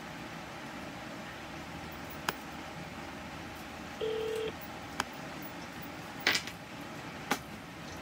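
A phone being dialed: a few sharp clicks of taps on the handset and one short keypad beep about halfway through, over a steady low hiss.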